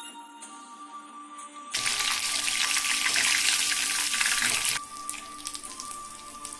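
Breaded prawns deep-frying in hot oil in a wok. A loud, steady sizzling hiss starts suddenly about two seconds in and drops near five seconds to lighter, irregular crackling, with background music underneath.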